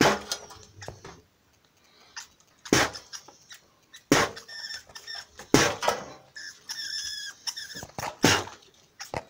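A rat caught in a metal cage trap, making short high squeaks, clustered in the second half. Several sharp knocks from the metal cage break in between.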